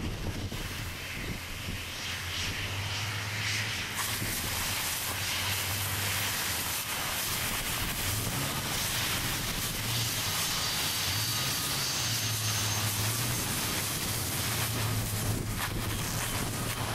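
Fire hose water jet spraying hard, a steady hiss that gets stronger about four seconds in, over a steady low hum.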